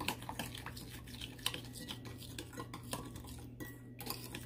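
Metal spoon stirring a spice-and-oil marinade in a bowl, with irregular clinks and scrapes against the bowl.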